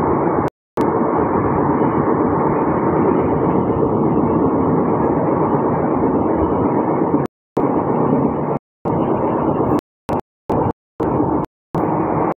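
Steady running noise of a moving express passenger train heard from aboard at the window: a continuous rumble and rush of the wheels on the track and the air. In the second half the sound cuts out to complete silence several times, each time only briefly.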